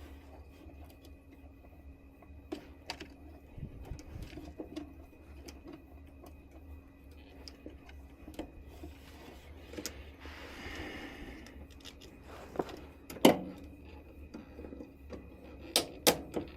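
Scattered clicks and knocks of metal parts and tools being handled on a furnace, the loudest about 13 seconds in and a few more near the end, over a steady low hum.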